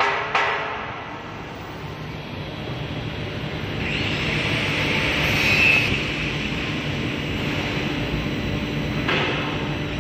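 Twin-spindle CNC router running and cutting into a fibreboard panel with both heads: a steady machine hum with a low drone, rising to a louder, high whining hiss for about two seconds midway.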